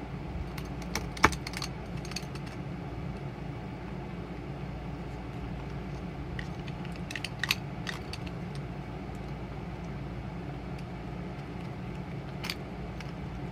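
Small metal items clicking and rattling against a metal mint tin as it is unpacked by hand: a few scattered sharp clicks, the loudest about a second in, over a steady low background hum.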